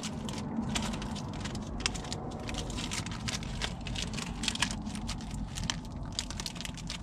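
Wrapper of a Hershey's chocolate bar crinkling and crackling as it is peeled open by hand, many small irregular crackles over a steady low rumble.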